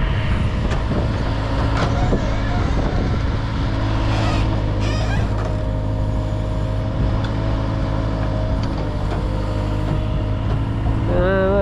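Backhoe loader's diesel engine running steadily close by, a continuous low drone under the digging.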